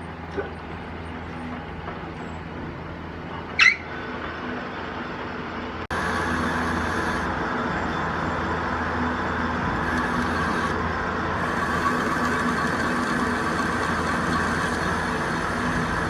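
Metal lathe running steadily while boring a part, with a brief sharp squeal a little under four seconds in. About six seconds in the sound jumps abruptly to a louder, steady machining noise with a high whine that runs on to the end.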